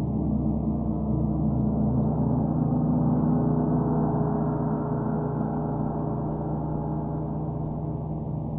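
Gongs ringing in a dense, sustained wash of low overlapping tones, swelling to its loudest about three to four seconds in and then easing slightly.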